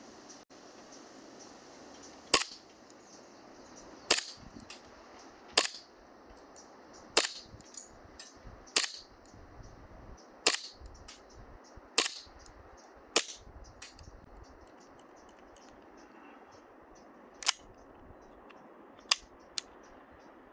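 KSC Makarov gas-blowback airsoft pistol firing single shots, each a sharp crack with the slide clacking back. There are about eleven shots, mostly about a second and a half apart, with a longer pause in the middle.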